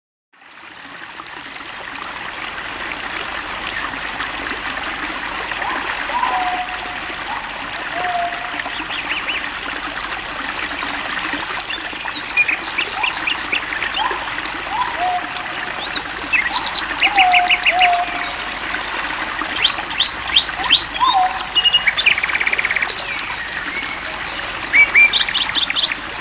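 Mountain stream running over rocks, a steady rush of water fading in from silence at the start. Birds call over it: a few low falling whistles in the first half, then quick runs of high chirps that get busier toward the end.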